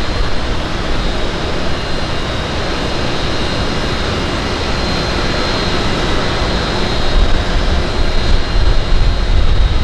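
Steady rushing outdoor noise with a low rumble; gusts of wind on the microphone grow stronger in the last few seconds.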